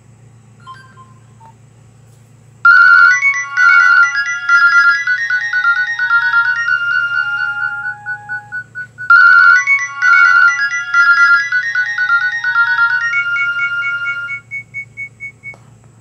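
Nokia 1680 classic's loudspeaker playing a bright, chiming melodic ringtone. The phrase starts about three seconds in, plays through twice, and ends in a run of quick repeated high notes. A few faint blips come before it.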